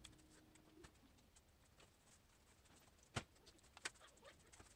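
Near silence: room tone, with two short knocks a little over three seconds and about four seconds in.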